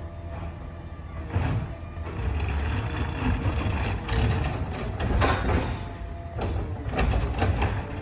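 McNeilus ZR automated side-loader garbage truck running with a low engine rumble, punctuated by several loud clanks and bangs from its lift arm and hopper as it works a curbside cart.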